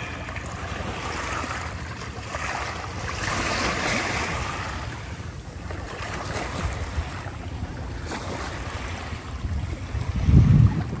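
Small waves lapping and washing over pebbles around a driftwood log, a continuous wash that swells a few seconds in. Wind buffets the microphone, with a brief loud low rumble near the end.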